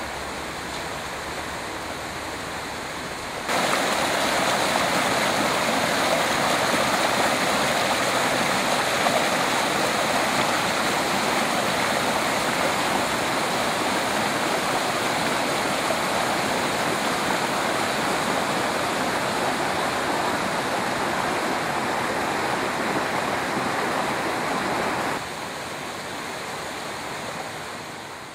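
Water rushing steadily out of a wooden mill flume and splashing onto rocks. It gets suddenly louder about three seconds in and drops back near the end.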